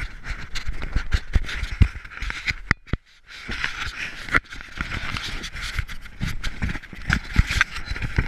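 Irregular knocks, scrapes and splashing as a musky is handled in a landing net against the side of a boat, with a brief break about three seconds in.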